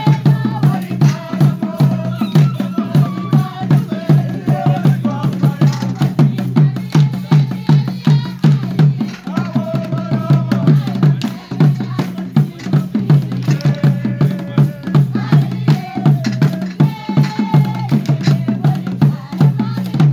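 Acholi bwola dance drumming: drums struck in a fast, steady beat of about three to four strokes a second, with voices chanting over it at times.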